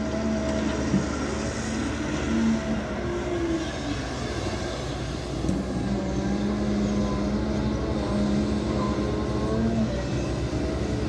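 Caterpillar 320 Next Gen hydraulic excavator's diesel engine running steadily. Its pitch dips and glides in the middle before settling again.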